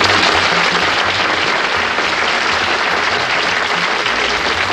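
Studio audience applauding steadily: a dense, even clatter of many hands clapping.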